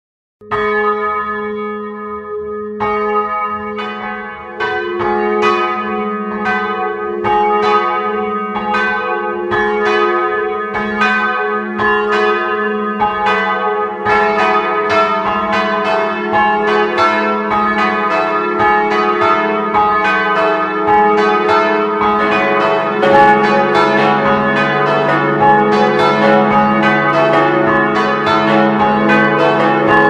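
Church bells ringing a falling melody: the parish's three 1929 Ljubljana-cast bells, tuned C♯, E and F♯, with a simulated fourth, smallest bell on A♭, striking in turn from high to low. The ringing starts about half a second in, and the peal fills out as more bells join over the first twenty-odd seconds.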